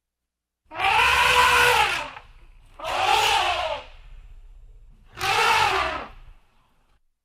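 Elephant trumpeting three times, each call about a second long and arching up and then down in pitch.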